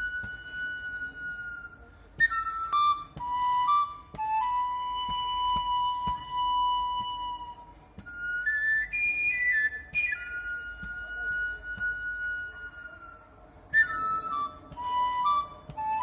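A flute playing a slow melody in short phrases: each steps down from a high start and settles into a long held note, with brief gaps between phrases.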